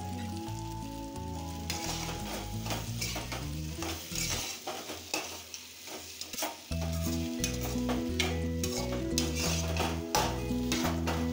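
A spatula stirring and scraping through sooji balls in a kadhai, with the oily masala sizzling. Repeated stirring strokes begin about two seconds in, over background music.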